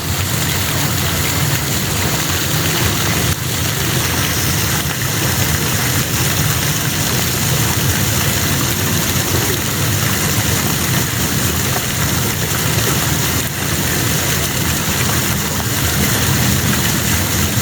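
Steady rain falling in an even hiss, over a low, steady rumble.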